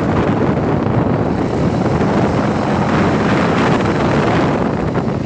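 Quad bike (ATV) engine running steadily while riding along, with wind buffeting the microphone.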